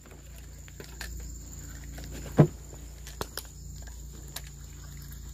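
Steady high-pitched insect chorus, with a low hum beneath and scattered clicks and knocks, the loudest a single thump about two and a half seconds in.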